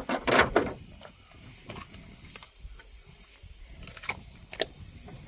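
Hand tools and metal parts clattering and clicking as they are handled, with a loud clatter at the start and then scattered single clicks.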